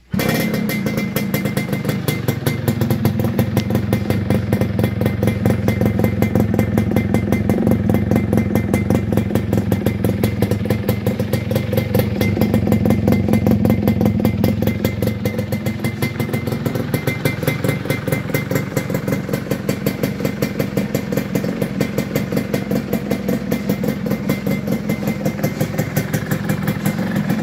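Yamaha F1ZR single-cylinder two-stroke engine running at idle through a 'belahan' aftermarket exhaust, with a crisp, rapid, crackling exhaust note. It comes in suddenly at the start and swells a little about halfway through.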